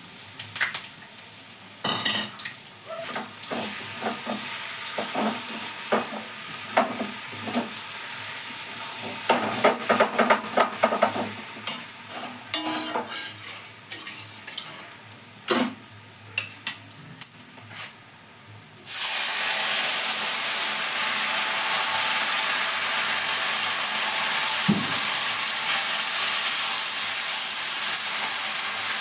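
Steel spatula scraping and clinking against a large metal kadai as food is stirred, with a quieter sizzle under it. About two-thirds of the way through, a loud, steady sizzle of frying food starts suddenly.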